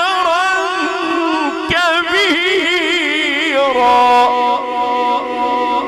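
A male Egyptian qari's voice chanting the Quran in a melodic tajweed style. A long ornamented line with quick wavering turns settles, about two-thirds through, into a long steady held note.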